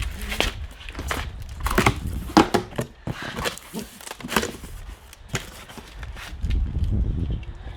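Hand-work noises: irregular rustling, crinkling and clicks, with a denser scuffing rumble near the end.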